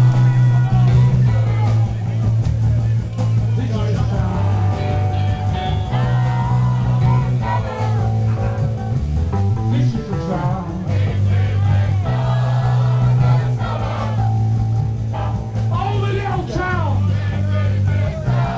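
Live punk rock band playing: electric guitar, a repeating bass line and a singing voice.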